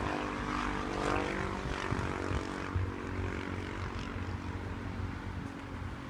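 A distant engine droning steadily, its pitch shifting in the first couple of seconds as if passing.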